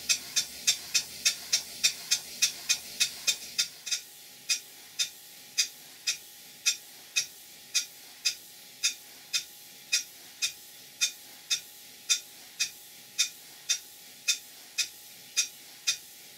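Stuart Major model beam engine running, with an even ticking beat at about three a second that slows to just under two a second about four seconds in. The engine is freshly timed, with its parallel motion adjusted, and runs smoothly without knocking.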